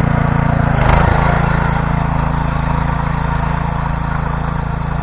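Kentavr 2090B walk-behind tractor's air-cooled engine running steadily under load as its tiller cutters work through damp, compacted soil, with a brief swell about a second in.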